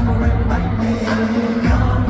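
K-pop song over a large concert PA system, loud and steady, with a heavy bass line, a regular percussion beat and some singing.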